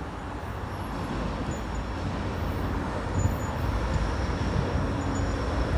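Diesel freight locomotives led by an EMD SD40-3 approaching with a long train of tank cars: a steady low engine rumble that grows slowly louder as the train nears.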